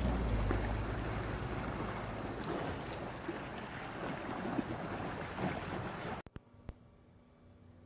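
Floodwater rushing and churning past, an even wash of water noise with wind buffeting the microphone. It cuts off abruptly about six seconds in, leaving only a faint steady hum.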